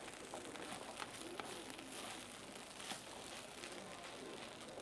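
Herb rice frying faintly in a non-stick pan on a gas burner: a low, even crackle, with a few light ticks as a wooden spatula stirs it.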